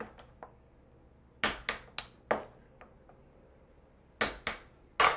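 A hammer striking a metal blade to split a basswood block along the grain: sharp knocks with a faint metallic ring, in small clusters of two or three.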